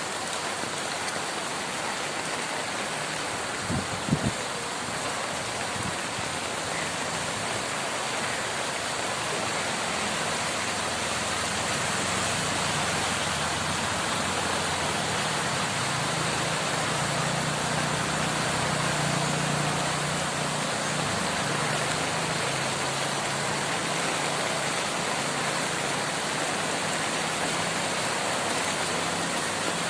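Heavy rain falling steadily, with a vehicle engine's low hum rising and fading through the middle, and a brief double knock about four seconds in.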